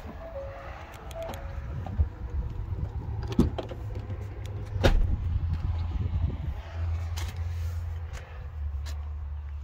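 Low rumble of wind on the microphone, with a few sharp clicks and knocks as the rear side door of a 2020 Ford Explorer is handled and opened, the loudest about five seconds in.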